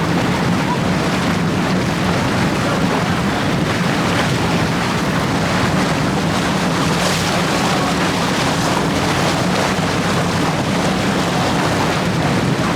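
Amphibious bus under way on the river: a steady low engine hum under wind buffeting the microphone and the rush of water.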